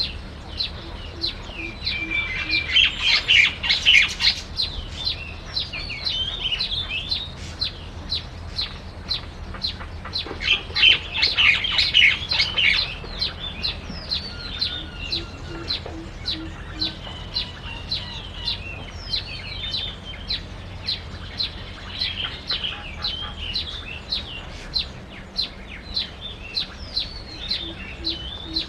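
Small birds chirping: a steady string of short, high chirps about two a second, with louder bursts of busy chattering song a few seconds in and again around the middle.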